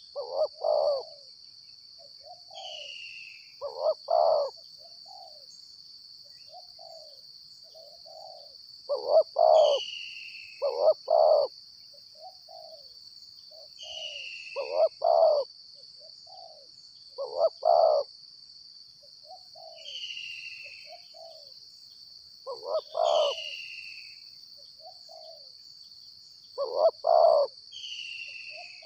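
Spotted doves cooing: a deep cooing phrase of two or three notes repeats every three to five seconds. Between the phrases a short falling high call recurs, and a steady high insect drone runs underneath.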